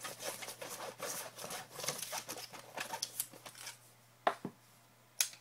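Paper raffle slips rustling and crinkling as they are shaken and stirred inside a cloth baseball cap, dying down after a few seconds, followed by two sharp clicks near the end.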